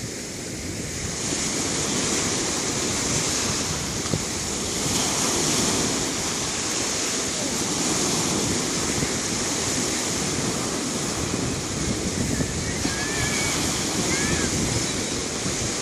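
Sea surf washing onto a shore: a steady rushing of breaking waves that swells gently in loudness.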